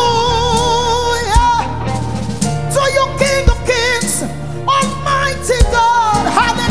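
Live gospel praise music: a woman sings long, wavering notes over a band, with drum hits about every two seconds.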